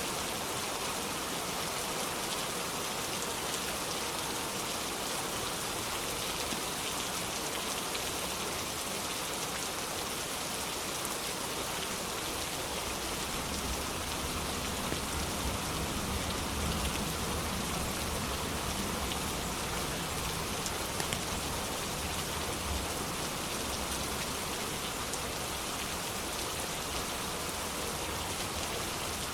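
Steady rain falling on a surface: an even, dense hiss with scattered drop ticks. A low rumble swells and fades in the middle.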